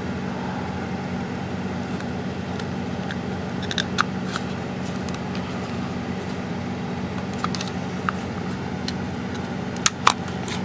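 Light plastic clicks and handling noises from a Dell computer mouse's shell being pressed together and worked with a small screwdriver, over a steady low hum. Two sharp clicks close together near the end are the loudest.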